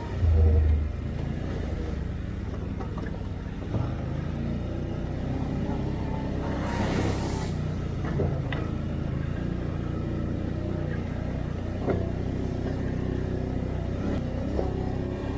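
Can-Am Outlander 850 ATV's V-twin engine running and revving while riding a trail, with a loud low thump right at the start, a short rush of noise about seven seconds in, and a few sharp knocks.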